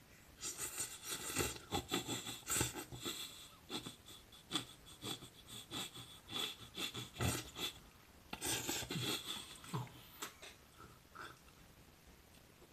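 A man laughing without words in irregular, breathy bursts that die down near the end.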